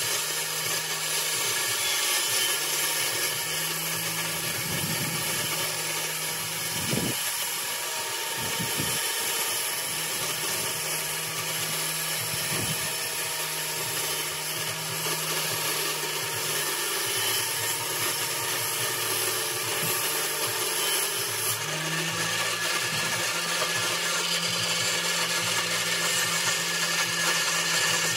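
A power tool running steadily while wood is worked, with a few low knocks partway through.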